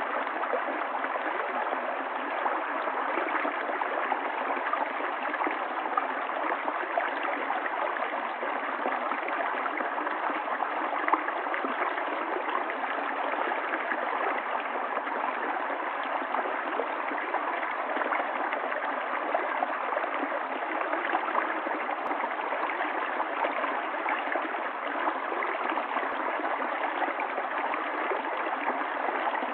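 Stream of running water, a steady gurgling flow with no break.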